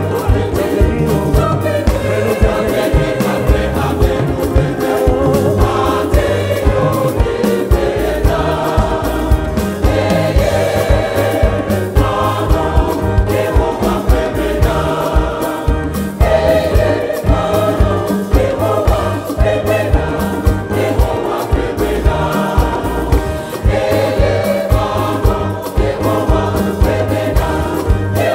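Large mixed choir singing a highlife gospel song in Ewe, backed by a live band with keyboards, horns, bass and a steady drum beat.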